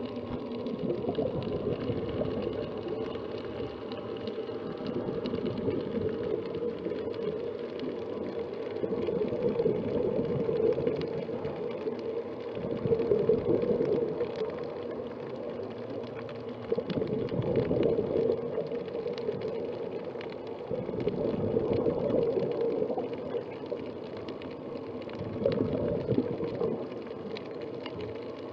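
Scuba diver's regulator breathing heard underwater through a camera housing: muffled gurgling bubble bursts that swell every few seconds over a steady watery hiss.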